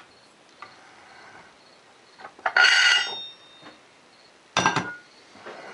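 Two metallic clanks, each ringing briefly, about two and a half seconds in and again near the five-second mark, from a three-jaw gear puller and the golf-cart primary drive clutch parts being handled; a faint click comes just before.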